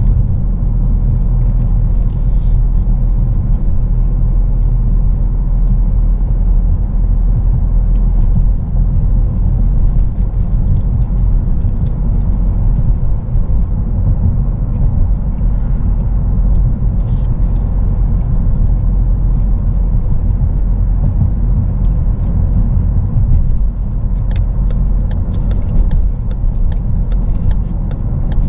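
Steady low road rumble inside a moving Ford Focus, the tyres and engine running at an even cruising pace.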